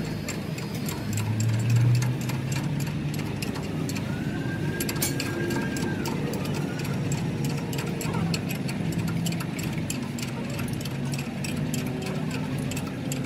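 Ratchet wrench clicking over and over as a nut is run down on a truck leaf spring clamp bolt, over a steady low engine hum in the background.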